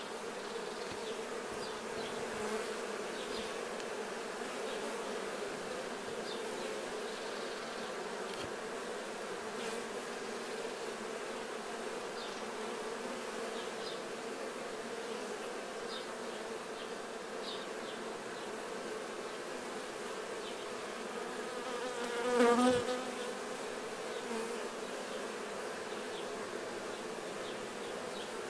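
Steady buzzing hum of many honey bees. Late on, one buzz swells louder and fades over about a second.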